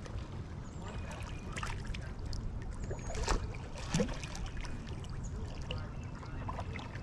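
River water splashing and trickling as waterfowl move and feed at the surface, with faint bird calls over a steady low rumble. Two louder splashes come about three and four seconds in.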